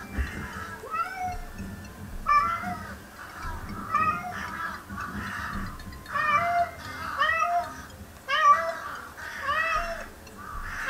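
Bengal cat crying out over and over in short meows that rise and fall in pitch, about one or two a second, worked up and frustrated at prey it cannot reach.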